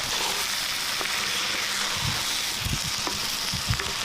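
Fish curry sizzling in hot oil and spice masala in a pan, a steady frying hiss, with a few soft low knocks about halfway through.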